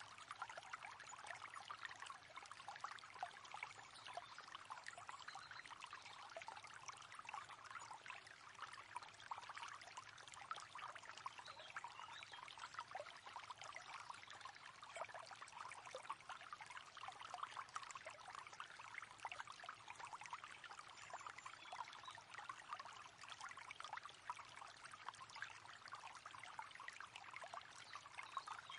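River water flowing steadily, a continuous busy trickling and splashing.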